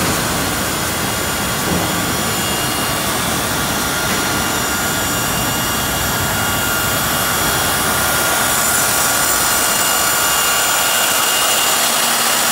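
Portable line boring machine running: its drive motor and gearing whine steadily as the boring bar turns, getting a little louder about two-thirds of the way in, with a lower steady tone joining near the end.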